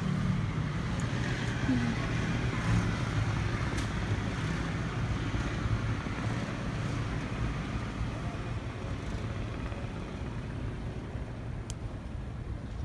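An engine running steadily with a low hum and a constant rush of noise, easing slightly toward the end.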